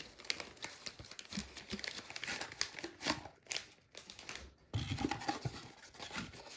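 Packaging crinkling and rustling in irregular crackles as parts are taken out of a smoke alarm's box, a little louder from about five seconds in.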